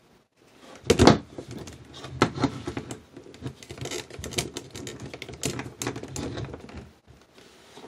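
Plastic Hulk and Abomination action figures handled and knocked together: an uneven run of clicks and clacks, the loudest a knock about a second in.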